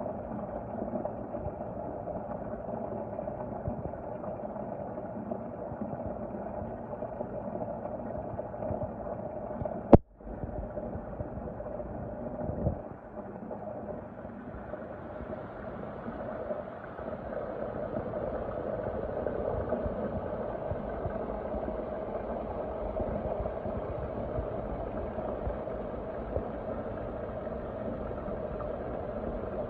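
Steady, muffled rumble of water, with a sharp click about ten seconds in followed by a brief drop-out.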